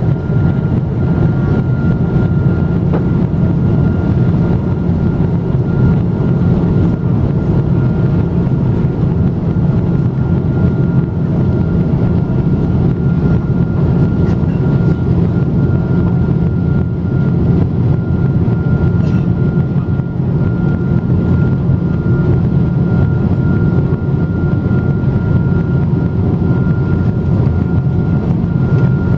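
Steady in-flight cabin noise of a Boeing 777-200: a continuous rumble of engines and rushing air with a faint steady whine above it.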